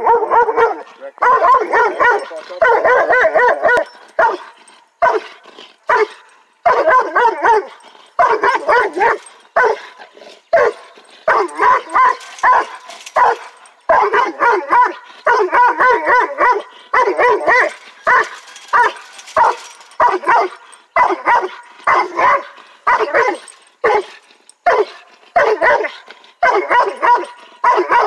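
Coonhound barking and bawling over and over in quick bursts, excited and nearly nonstop during coon-play training at a raccoon behind the fence.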